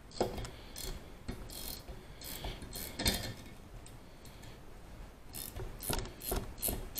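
Ratchet clicking in short throws as a rusty exhaust manifold nut is walked off its stud, the clicks coming closer together near the end.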